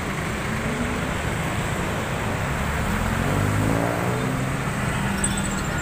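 Steady road traffic passing close by. Midway through, a vehicle engine rises in pitch as it speeds up.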